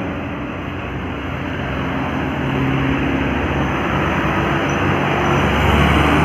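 A heavy road vehicle's engine labouring up a steep grade with road noise, growing steadily louder over the last few seconds as it nears.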